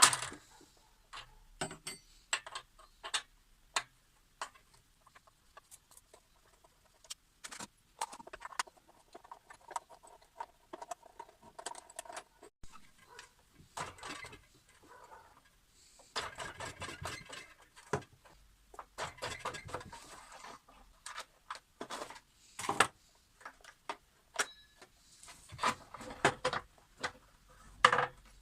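Hand tools and metal parts being handled during repair work on a power cutter: irregular clicks, knocks and short metallic rattles, busier in the middle and again near the end.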